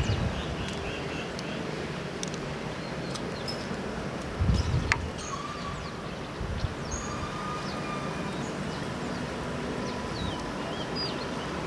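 Outdoor ambience: small birds chirping in short high calls over a steady low rumble, with a brief gust of wind on the microphone about four and a half seconds in.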